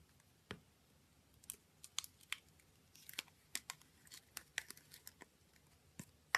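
Avalanche slime being squished and poked, giving a run of small, sharp, irregular crackles and clicks that thicken after the first second or so.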